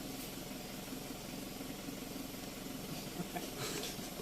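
Loaded dump truck's engine idling steadily while the truck sits stopped.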